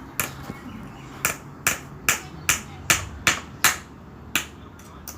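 Hammer driving a nail into wood: seven sharp strikes at a steady pace of about two and a half a second, then one more a little later.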